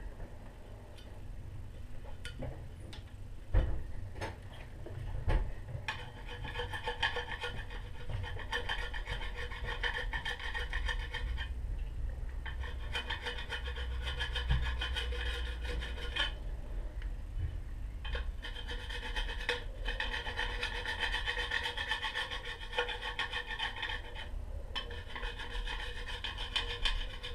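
Hand scraping and rubbing on a wheel part, in long steady runs broken by three short pauses, with a couple of sharp knocks a few seconds in.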